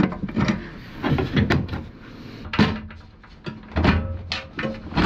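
Metal knocks and clunks of a bolted-in aluminium storage box being freed and lifted out of a vehicle's cargo area, with a sharp bang about two and a half seconds in. A low hum sets in near the end.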